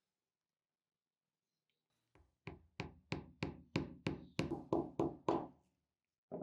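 Small hammer tapping on pocket knife parts: about ten sharp strikes at roughly three a second, starting about two seconds in, then one more strike at the very end.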